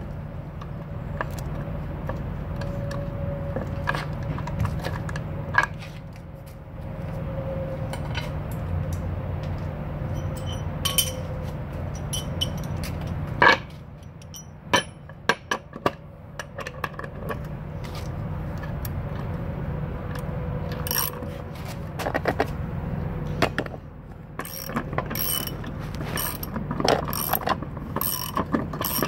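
Socket wrench ratchet clicking as a socket on a long bar works the nut on the air spring's upper mounting stud, with runs of sharp clicks and a close, evenly spaced run near the end. A steady low hum lies under it throughout.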